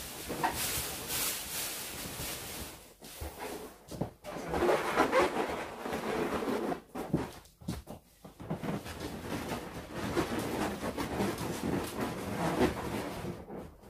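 Latex balloons rubbing and bumping against each other as a balloon cluster is handled and fitted into a balloon garland, in irregular rustling bursts with short pauses.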